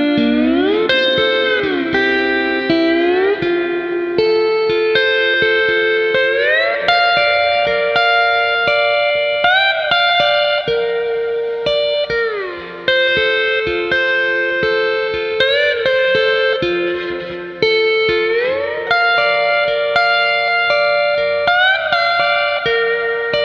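Guitar music, likely a Hawaiian-style steel guitar: held chords whose notes slide smoothly up and down into the next pitch every second or two.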